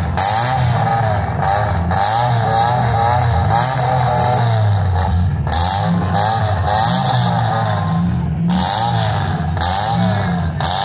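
Demolition derby car engines revving hard, their pitch swinging up and down over and over, with more than one engine running at once.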